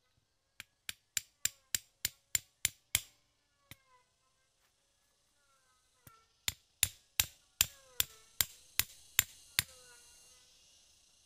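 Knife blade knocking on the top of a bamboo stake, driving it into packed soil as a peg for a wild chicken snare. Two runs of sharp, evenly spaced knocks, about three a second: one near the start and one beginning about six seconds in.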